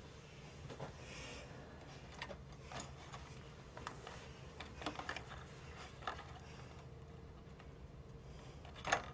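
Light, scattered clicks and taps of wooden chopsticks against an instant-noodle bowl as the noodles are stirred and lifted, with a sharper click near the end.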